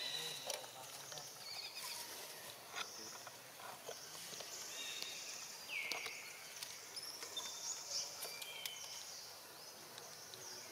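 Forest ambience: scattered short high chirps and trills from birds and insects, with one falling whistle about six seconds in.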